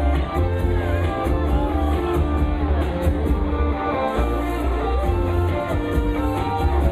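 Live instrumental rock from a band: a lead electric guitar plays a melody with gliding, bent notes over a heavy electric bass line and a steady beat. The bass drops out briefly about four seconds in.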